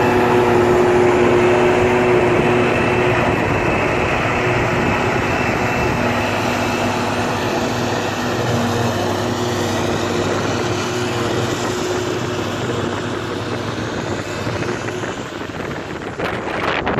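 Claas Jaguar 870 forage harvester chopping grass under load, with a tractor and forage wagon running alongside: a steady machine drone with a humming tone, slowly fading as they move away. Wind buffets the microphone near the end.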